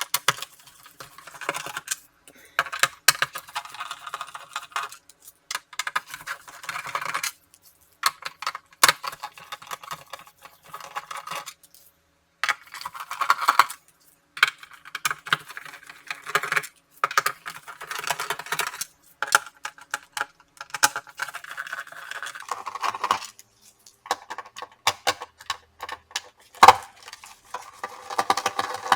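Screws being backed out of a laptop's plastic bottom case with a precision screwdriver: repeated bursts of small clicks and scraping, a second or two each, broken by short pauses, with small metallic clinks as screws are handled.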